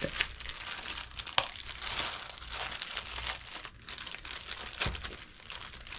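Clear plastic packaging bag crinkling as it is handled and pulled open by hand, with two sharp clicks.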